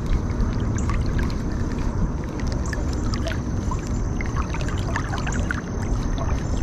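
Steady low water noise of a creek with a continuous rumble, dotted with many small ticks and light splashes, and a faint steady high tone throughout.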